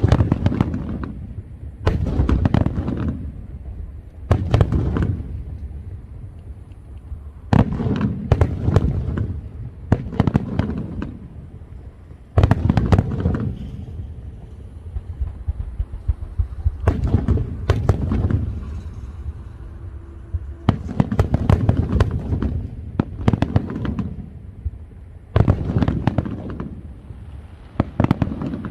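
Fireworks display: about a dozen volleys, each a deep boom with a quick cluster of sharp cracks, coming every two to three seconds.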